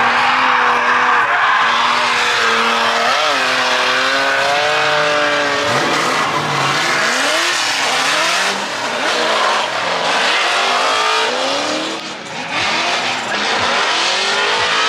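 Drift car at full throttle with its tyres squealing through a slide. The engine note holds fairly steady for the first few seconds, then rises and falls again and again as the driver works the throttle.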